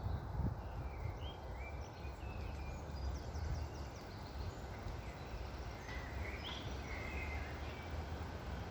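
Several small birds chirping and trilling in short scattered calls over a steady low rush of wind.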